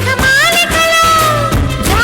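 Recorded Telugu song playing loudly, in a short break between sung lines: a gliding melody over a steady low beat.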